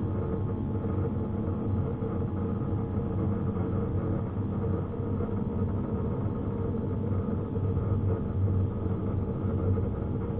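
A steady, engine-like mechanical hum with a few held low tones that does not rise or fall.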